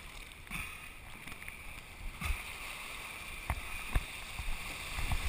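Choppy sea water lapping and splashing quietly against a GoPro action camera's waterproof housing held at the surface, with three sharp taps on the housing.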